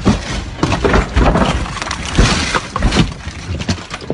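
Road vehicle crash: a rapid string of sharp impacts with breaking, shattering glass.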